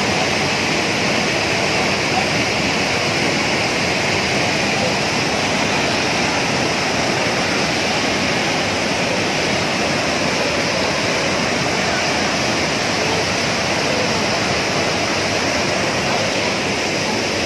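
Mountain waterfall pouring through a culvert under the road into a rocky stream: a loud, steady rush of falling water.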